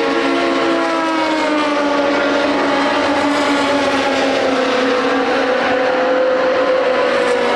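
Historic racing car engines running at high revs on track, a steady, loud, pitched engine note whose pitch sags slowly and then rises and falls again in the second half.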